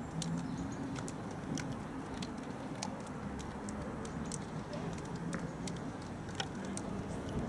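Steady outdoor background hum with faint voices, broken by scattered light ticks and clicks at irregular intervals.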